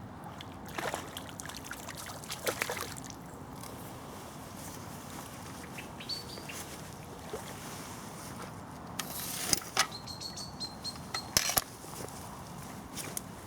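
Steady flow of river water, with a few brief splashes and short high bird chirps.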